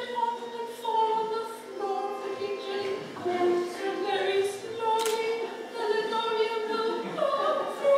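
A woman singing a hymn unaccompanied in long held notes.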